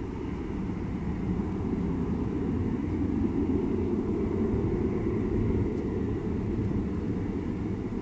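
Jet aircraft engines heard from across an airfield: a steady low rumble with a faint high whine, growing slightly louder over the first few seconds and then holding even.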